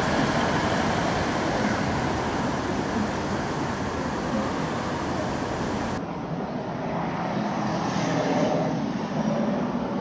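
Steady street traffic noise from passing cars. About six seconds in it changes abruptly to a duller, more muffled hum.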